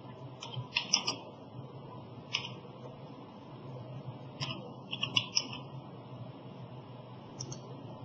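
Computer keyboard keystrokes and mouse clicks: sharp clicks in small clusters about half a second to a second in and around five seconds in, with single clicks in between, over a steady low hum.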